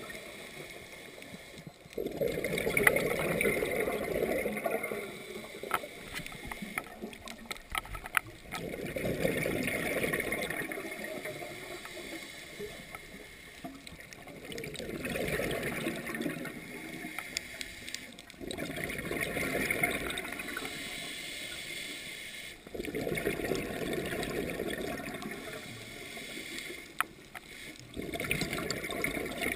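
Scuba diver's regulator breathing heard underwater: about six rushes of exhaled bubbles, each lasting two to three seconds, coming every four to six seconds with quieter stretches between.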